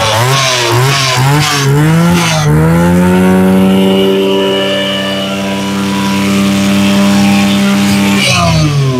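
Mitsubishi TB23 brush cutter's two-stroke engine revved up and down a few times, then held at high revs for several seconds. Near the end the throttle is let go and the revs fall away.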